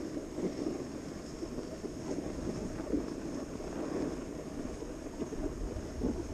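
Snowboard sliding down groomed snow, its base and edges scraping in a steady hiss, with wind on the microphone.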